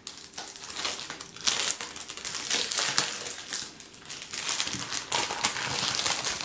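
Clear plastic sleeve crinkling in irregular rustles as it is handled and opened to take out the magazine inside.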